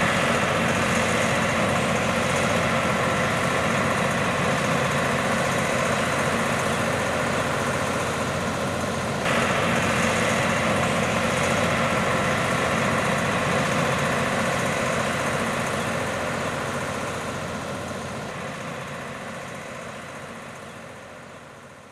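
EMD diesel road-switcher locomotives running steadily as their passenger train moves off, a continuous engine drone that fades out over the last several seconds.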